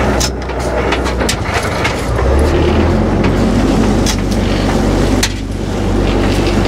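Fishing boat's engine running steadily underway, a low drone that shifts in pitch about two seconds in, with scattered sharp clicks and knocks from gear on deck.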